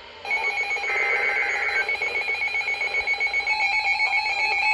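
Emergency Alert System tones: a steady, piercing alert tone comes on about a quarter-second in and holds. A short burst of rapid digital data warble, a SAME header, overlaps it for just under a second, ahead of a severe thunderstorm warning.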